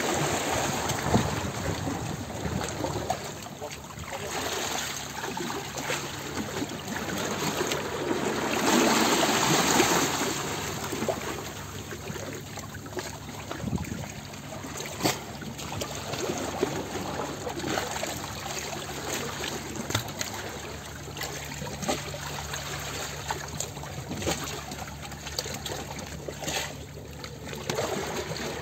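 Water trickling and bubbling steadily, with a faint low hum beneath it and a louder swell about a third of the way through.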